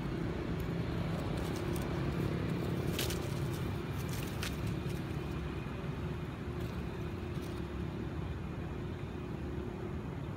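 Steady low outdoor rumble with a faint steady hum, like a distant engine or traffic, with a few brief faint clicks near the middle.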